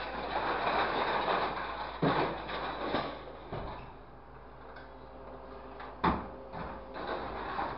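Scrap metal rods and pipes rattling and scraping in a grapple truck's claw as the load is lifted and swung, with several metal clanks, the loudest about six seconds in. A faint steady hum runs under the quieter second half.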